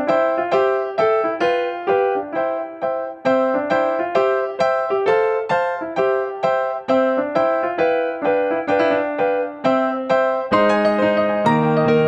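Background music: a light piano or electric-piano tune played in a steady stream of evenly spaced notes, about three a second, with lower notes joining in near the end.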